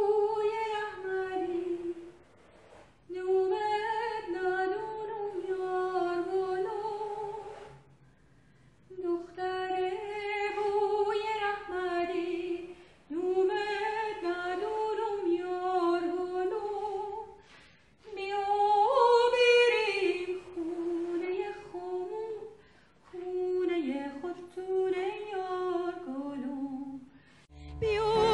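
A woman's voice singing unaccompanied, in bending, ornamented phrases a few seconds long, with short pauses between them.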